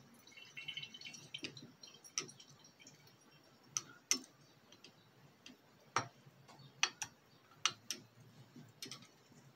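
Faint, scattered sharp clicks and light taps at irregular intervals, about ten in all, over a low background hum.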